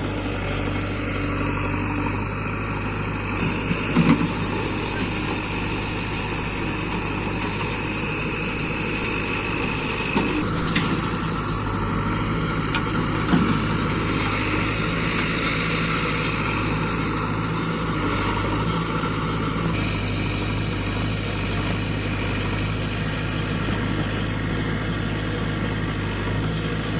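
Diesel engine of heavy machinery running steadily at low speed, with three short knocks scattered through it.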